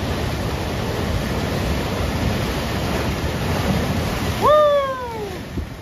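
Ocean surf washing in steadily, with a wave breaking and splashing against the rocks. About four and a half seconds in, a person lets out a loud, falling "whoo" lasting about a second.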